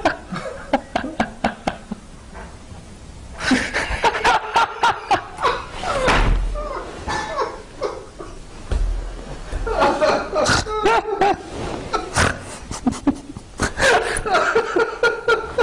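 A long fit of helpless laughter from people in the room. It comes in breathy bursts that break off into short lulls and then start up again.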